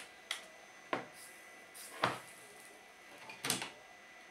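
Light clicks and knocks of tools and parts handled on a workbench, about four of them, irregularly spaced.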